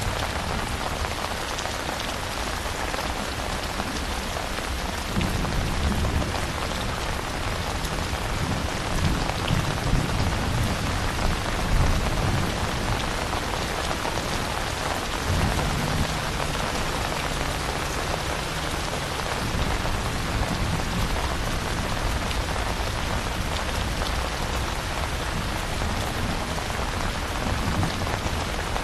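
Steady rain falling, with low thunder rumbling about five seconds in, lasting several seconds, and again briefly around the middle.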